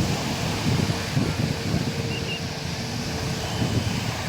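Wind buffeting the microphone over the wash of surf on a beach, with a faint steady hum in the background.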